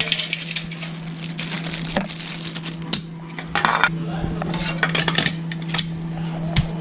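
Scattered light clinks and clicks, like small hard objects knocking together, over a steady low hum.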